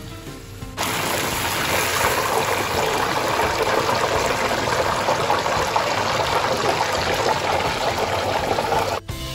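Deep-frying oil sizzling hard around breaded fish balls in the pan, a dense steady hiss that starts suddenly about a second in and cuts off just before the end.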